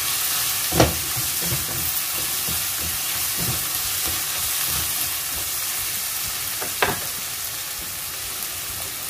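Sliced tempeh frying in a nonstick wok with a steady sizzle while a spatula stirs and scrapes it around the pan. Two sharp knocks of the spatula on the pan, about a second in and about seven seconds in.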